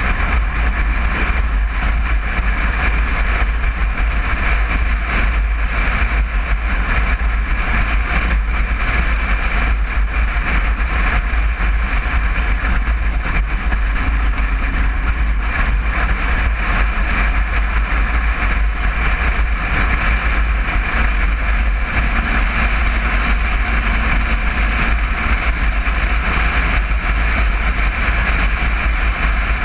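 1961 Volkswagen Bus's air-cooled flat-four engine running steadily while driving, a constant low rumble with no change in pace.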